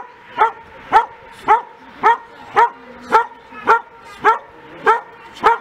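Border collie barking steadily and rhythmically, nearly two barks a second, at a helper standing in a hiding blind: the bark-and-hold of protection-sport training, where the dog keeps the helper in place by barking.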